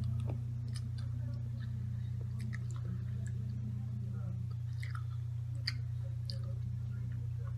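A person chewing a Skittles candy: small scattered mouth clicks and smacks, over a steady low hum.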